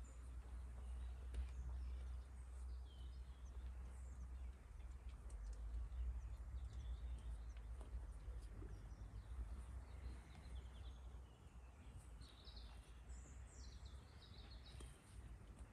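Quiet outdoor ambience: small birds chirping now and then, more of them near the end, over a steady low rumble.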